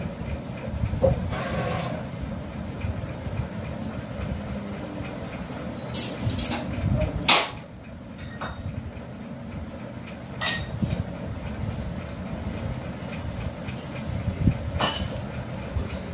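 A steady low background rumble with a handful of sharp clicks and taps as a small compass and a pencil are handled on paper, the loudest a little past the middle.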